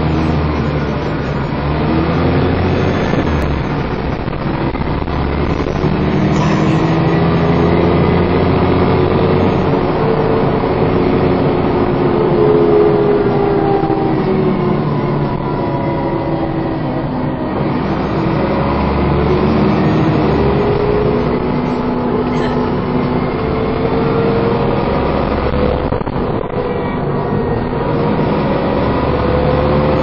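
Dennis Trident 2 double-decker bus driven hard, heard from the upper deck: the engine revs climb and drop back again and again as the gearbox shifts, under the bus's hoover-like whine. The bus doesn't like sticking to its gears.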